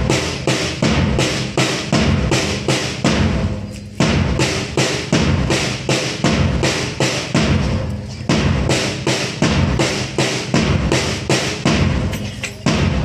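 Large drum beaten in a steady march rhythm of about three strokes a second, in phrases broken by short pauses every four seconds or so, keeping time for a group drill.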